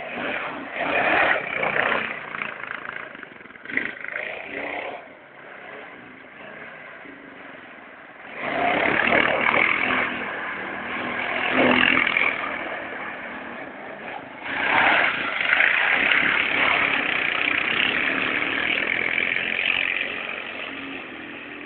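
Honda Foreman 500 quad bike's single-cylinder engine revving in repeated bursts as it spins donuts, dropping back to lower revs between them, with the longest, loudest runs in the second half.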